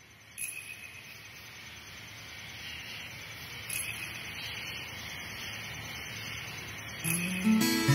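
Steady rushing hiss of a stream that grows slowly louder, broken by three short sharp clicks. Acoustic guitar music comes in near the end.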